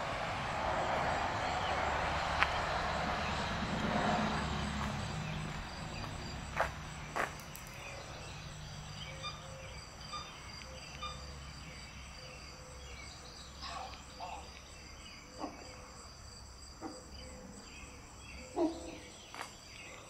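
Insects chirping steadily in a high pitch, with a rushing noise that fades over the first five seconds and a few scattered soft knocks.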